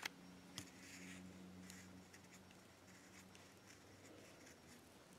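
Near silence over a faint low hum, with two small clicks in the first second and light rustling: a coated cylinder head bolt being picked up and handled by hand on a paper plate.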